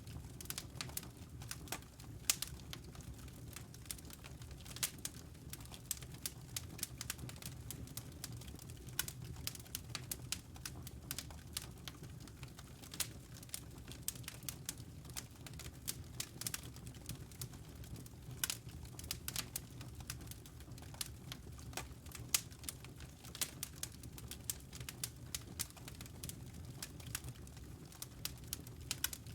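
Fire crackling in a fireplace: many irregular sharp pops and snaps, some louder than others, over a low steady background.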